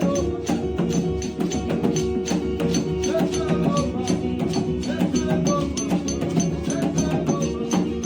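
Gospel worship music without clear singing: a quick, steady percussion beat over sustained keyboard-like chords.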